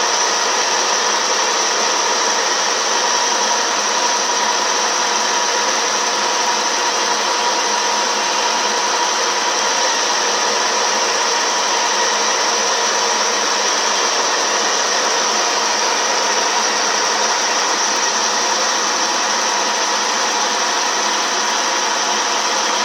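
CNC milling machine running steadily while turning a part, with a high steady whine over a dense, even hiss.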